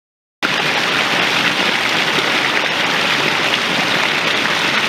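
Hill stream running over rocks: a steady rush of water that cuts in abruptly just under half a second in.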